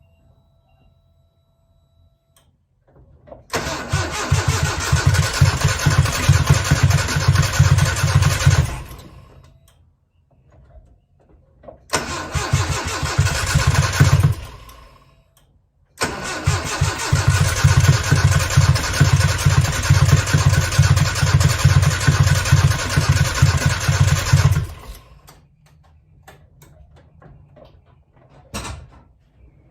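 1995 Nissan pickup's engine cranking on the starter in three tries: about five seconds, then two and a half, then about nine, turning over in a fast even rhythm without catching. It sounds like it's about to fire up but doesn't start, which the owner thinks may be a fuel issue. A short sharp click comes near the end.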